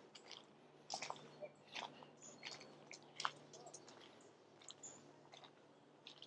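Quiet outdoor ambience: faint scattered clicks and ticks over a low steady hum.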